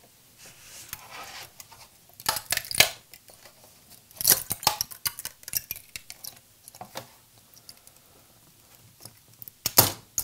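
A Prusa i3 MK3 spring-steel print sheet flexed by hand to pop a silver PLA print and its supports loose: a few bursts of sharp clicks and metallic pops, about two seconds in, about four seconds in, and again near the end.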